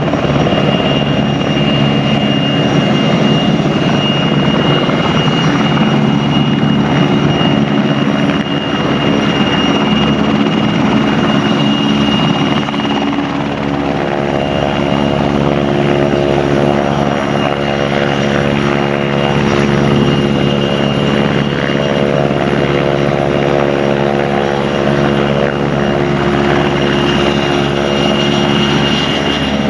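PZL W-3A Sokol helicopter hovering low: steady beat of its main rotor with a high, thin whine from its twin turboshaft engines. About halfway through, a denser, more tonal engine note joins in.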